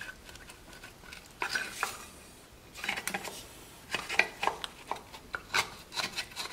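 Irregular plastic clicks, rattles and scrapes of a sealed electrical connector on a glow plug controller being wiggled and pulled by hand. The connector is stuck: squeeze tabs on both sides hold it on.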